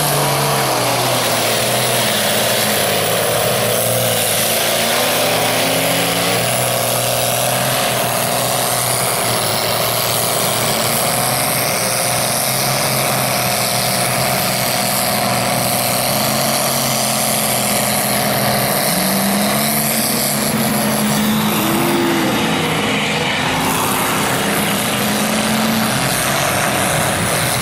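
Lifted pickup truck's engine running hard and revving as it churns through deep mud. Its pitch rises and falls a few times in the second half.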